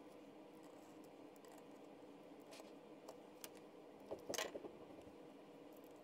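Near-silent workbench handling: a few faint clicks, then, about four seconds in, a short cluster of sharp scraping clicks from a utility knife and steel rule being worked on leather over a rubber mat.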